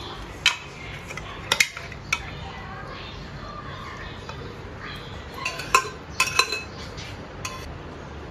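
A steel spoon clinking and scraping against a metal pressure cooker pot as cooked chicken curry is served out. Irregular sharp clinks with short rings, bunched together about two thirds of the way through.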